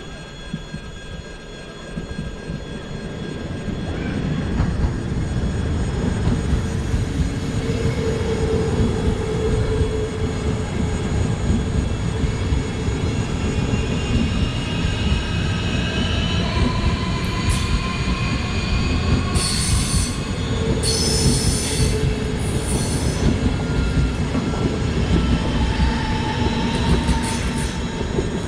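Two coupled ES1 Lastochka (Siemens Desiro RUS) electric multiple units passing close by: the rumble of the wheels on the rails builds over the first few seconds and stays loud as the cars go past, with high whining tones over it and a few short hissing squeals about two-thirds of the way through.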